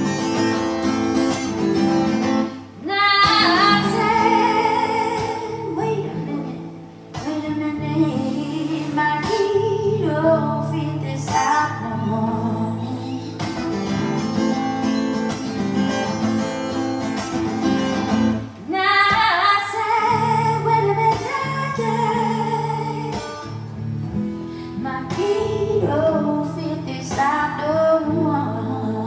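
A singer performing a song live with acoustic guitar accompaniment.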